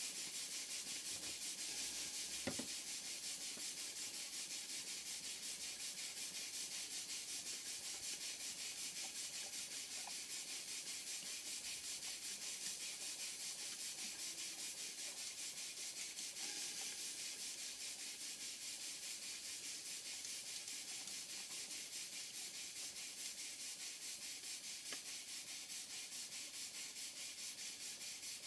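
Vintage workshop-type single-cylinder horizontal steam engine running steadily on live steam, its exhaust hissing in a fast, even rhythm.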